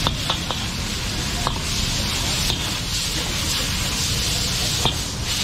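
Food sizzling in a wok over a high gas burner flame, a steady hiss, with a few short metal clinks from the ladle against the wok.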